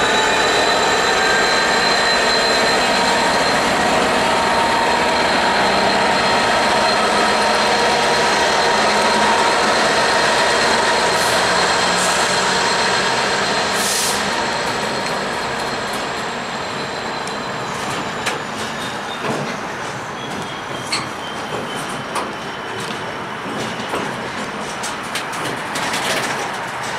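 Colas Rail Class 66 diesel locomotive's two-stroke V12 engine running as it pulls a freight train past, with a high steady whine that drops in pitch and fades after about 17 seconds. The wagons then keep rolling by, their wheels clicking over the rail joints.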